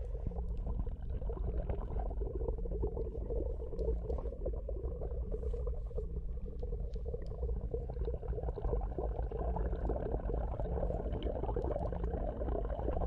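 Pond water moving and bubbling: a steady low rumble with dense crackling over it.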